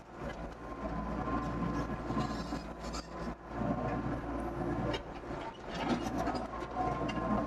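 Doosan DX55 mini excavator running under work: a steady engine hum with frequent metallic clanks and rattles from the machine.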